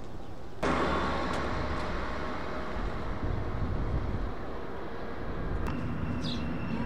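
Street traffic ambience: a steady hum of cars on the road that starts abruptly about half a second in. Near the end it gives way to quieter outdoor ambience with a few short bird chirps.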